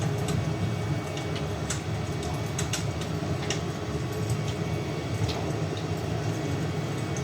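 Fire crackling, with irregular sharp pops and ticks over a steady low rumble.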